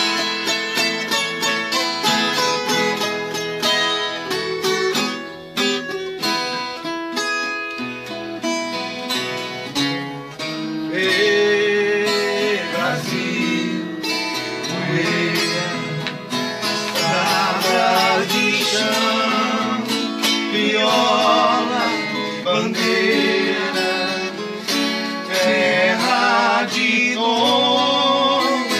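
Viola caipira plucked and strummed in a moda de viola, its quick notes alone for the first ten seconds or so, then joined by men's voices singing from about eleven seconds in.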